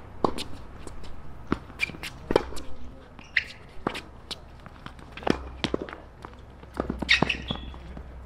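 Tennis rally on a hard court: irregular sharp knocks of racket strikes and ball bounces, mixed with players' footsteps and a few short high squeaks.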